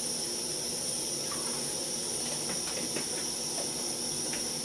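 MSR WhisperLite Universal stove burner in liquid-feed mode, hissing steadily at a low flame while it warms up. A few faint light clicks of a plastic bottle being handled sound in the middle.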